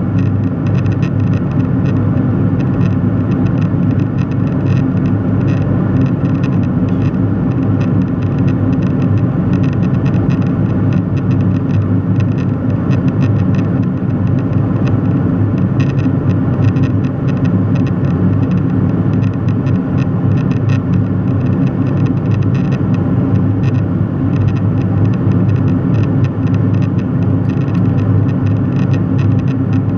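Steady cabin drone of a jet airliner in cruise flight: an even, low-pitched roar with a fainter hiss above it, unchanging throughout.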